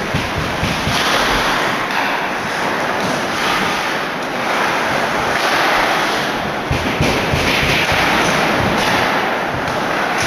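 Crowd at an ice hockey game cheering and yelling loudly, the noise swelling and easing, with a few dull thumps near the start and again about seven seconds in.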